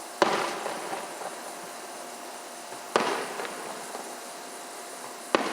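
Fireworks shells bursting: three sharp bangs roughly two and a half seconds apart, each trailing off.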